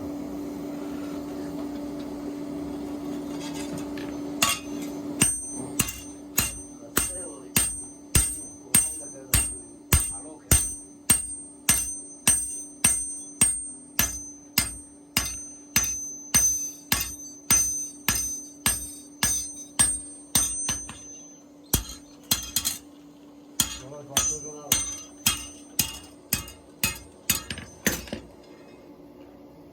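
Blacksmith's hammer striking metal on an anvil in a steady rhythm, about two blows a second, each blow leaving a high ring. The hammering breaks off briefly about two-thirds of the way through, then resumes and stops near the end. A steady hum fills the first few seconds before the blows begin.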